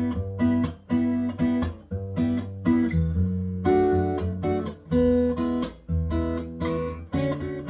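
Taylor 714ce cedar-top, rosewood-bodied acoustic guitar with X bracing, played in a bossa nova rhythm: short plucked chords with bass notes beneath, in a syncopated pattern with brief gaps between them.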